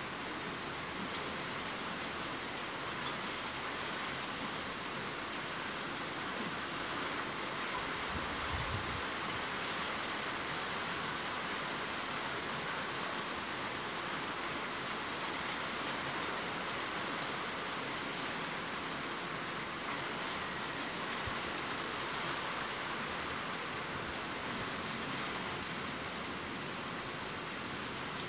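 Steady rain falling: an even hiss with scattered faint drop ticks.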